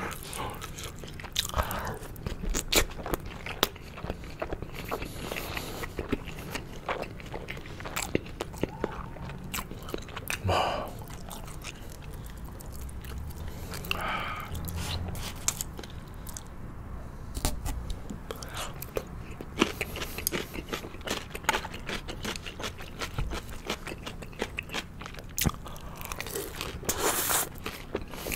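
Close-miked chewing and biting of yangnyeom-sauced boneless fried chicken: many short mouth clicks and crunches, with a few longer noisy chewing passages.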